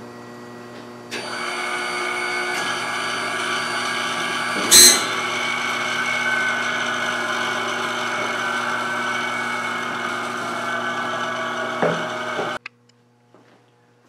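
X-ray machine buzzing while an exposure is made, the 'bzzzt' that comes with every exposure. It is a steady buzz of many tones that starts about a second in and cuts off suddenly about a second and a half before the end, with one sharp click, the loudest sound, about five seconds in.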